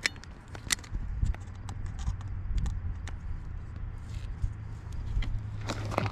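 Scattered light clicks and taps of an electronic digital caliper and a metal straightedge being handled against each other on ballistic clay, while the depth of a backface-deformation dent is measured, over a low steady hum.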